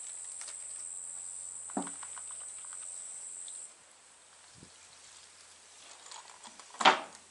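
Insects droning high and steady until the sound cuts off abruptly about three and a half seconds in, over light clicks and knocks as a plastic solvent bottle is opened and tipped over a plastic tub of parts. A sharp knock near the end is the loudest sound.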